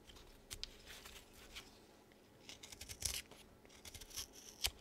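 Japanese Power Grip carving gouge cutting basswood by hand: a few short, faint, crisp scrapes as chips are pared off, the strongest about three seconds in and again near the end.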